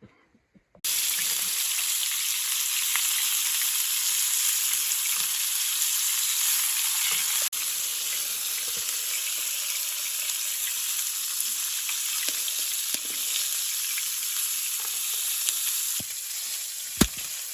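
Food sizzling and frying in a hot pan: a steady high hiss with small crackles that starts abruptly about a second in, with two sharp clicks near the end.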